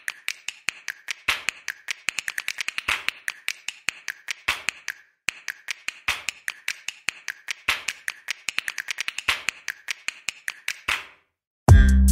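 Many sharp clicks and taps in uneven runs of several a second, with dead silence between them. They stop about eleven seconds in, and loud electronic music with a heavy beat cuts in just before the end.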